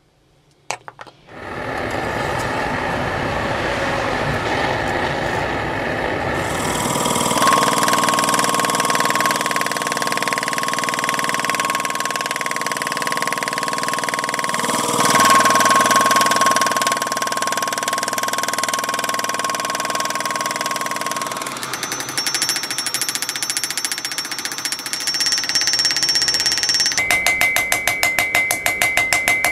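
Power hammer running and pounding a hot mild-steel bar for most of the stretch. Near the end come rapid, ringing hand-hammer blows on the steel bar against the anvil.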